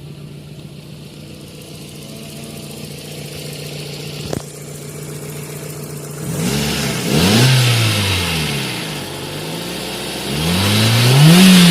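Car engine idling steadily, then revved twice: the pitch climbs and falls back about seven seconds in and again near the end. There is a single sharp click about four seconds in.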